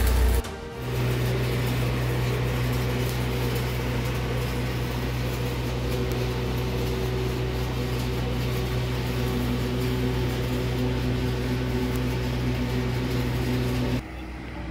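An engine running steadily at constant speed, a low even hum with a few fainter higher tones over it. It starts about a second in and cuts off shortly before the end.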